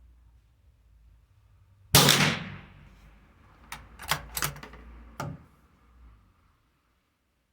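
A CZ 457 Varmint bolt-action .22 LR rifle fires one shot about two seconds in, with a short ringing tail. It is followed by five sharp clicks over the next few seconds as the bolt is worked to eject the case and chamber the next round.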